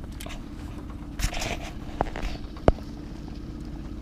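Handling noise: rustling and two sharp clicks over a steady low hum.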